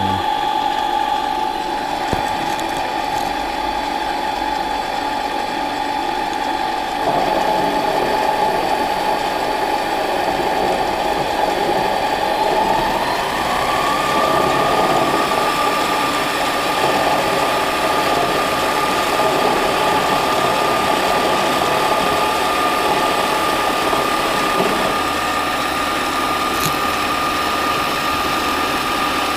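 Harbor Freight mini lathe running with a steady mechanical whine. About seven seconds in it gets louder, and about halfway through the whine rises in pitch and then holds at the higher note.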